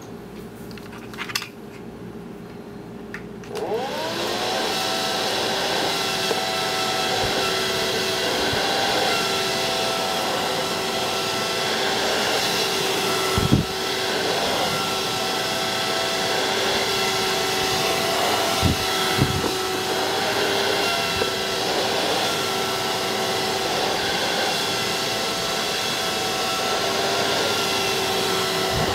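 Vantec Tornado 80 mm high-speed fan spinning up about three and a half seconds in. Its pitch rises briefly and then settles into a steady loud whine with a rush of air as it blows the cardboard box up onto an air cushion. A few dull knocks come midway.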